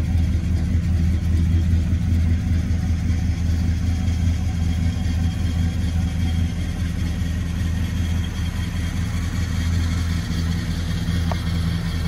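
1970 Oldsmobile Cutlass SX's 455 cubic-inch big-block V8 idling steadily with a deep, even hum, growing slightly quieter toward the end.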